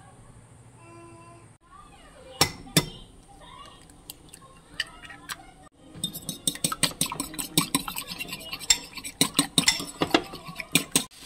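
A metal fork beating a raw egg in a ceramic bowl: rapid clinking of metal on china through the second half. Earlier come two sharp knocks close together and a few lighter clicks.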